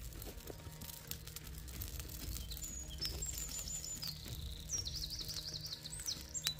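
A small songbird singing high, thin whistled notes, with a fast trill of repeated notes near the middle, over a steady low outdoor rumble.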